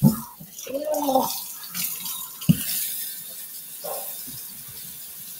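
Kitchen faucet running into a metal sink, a steady hiss. A short voice sound comes about a second in, and a sharp knock about halfway through.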